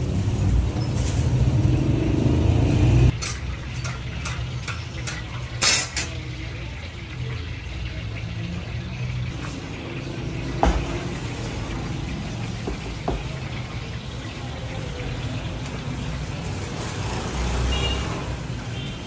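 Steady low rumble of road traffic with a few sharp knocks of a metal pot, the loudest about six seconds in. A heavier rumble stops abruptly about three seconds in.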